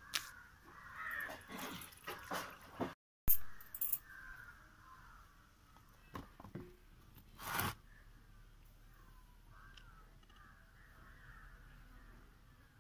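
Crows cawing on and off, with a few sharp knocks, the loudest about three seconds in and another about seven and a half seconds in.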